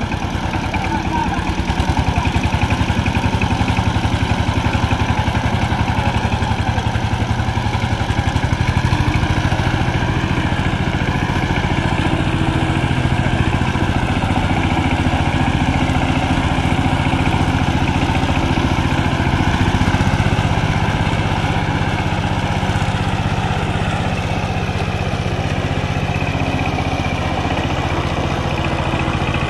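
A 12 hp two-wheel power tiller's single-cylinder diesel engine chugging steadily under load as it drags a leveling ladder through flooded paddy mud.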